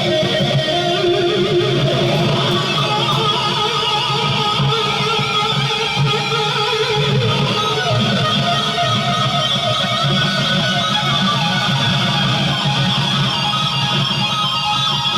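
Guitar music with strumming, at a steady level throughout.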